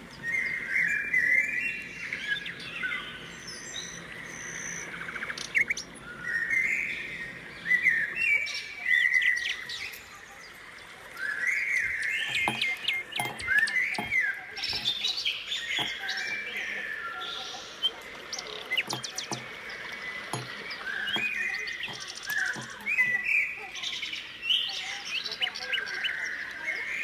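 Birds chirping and twittering continuously, with many short rising and falling calls overlapping, and a few sharp taps about halfway through and near the end.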